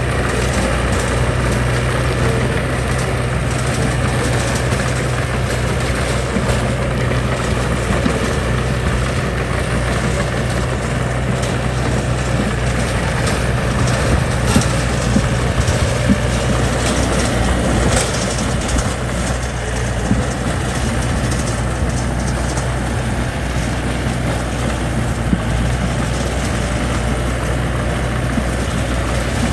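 Diesel engine of a heavy earthmoving machine running steadily at a low, even drone, with a few faint knocks.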